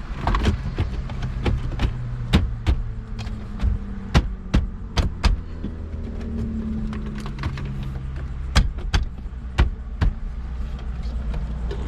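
Irregular sharp plastic clicks and knocks from wiring connectors and the car radio unit being handled and pushed into place, over a steady low hum.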